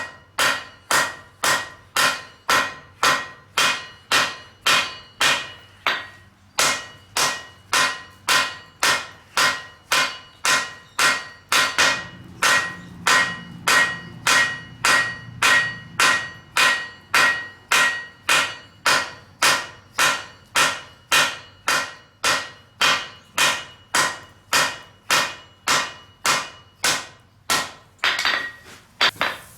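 Hammer blows on hot steel on an anvil in a steady rhythm of about two a second, each with a bright ring; the hammering stops shortly before the end.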